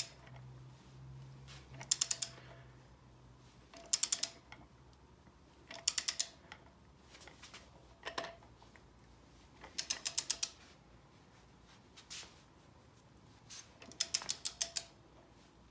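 Ratchet head of a 1/2-inch-drive click torque wrench being worked back and forth: a quick run of ratchet clicks on each return stroke, about every two seconds, as the harmonic balancer bolt is slowly tightened. One lone, heavier click falls about eight seconds in.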